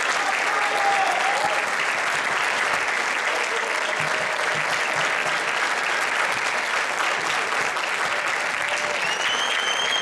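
Concert audience applauding steadily for a wind ensemble standing to take its bow.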